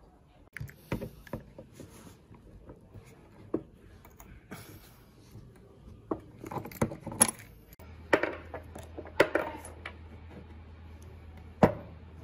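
Irregular clinks and knocks of the old hammer drill's steel and cast parts being handled during disassembly, knocking against each other and the wooden board, with some scraping of a small tool against the rusty chuck.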